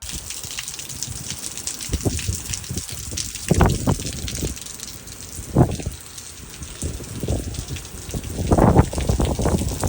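Heavy rain falling steadily, with louder irregular surges every few seconds.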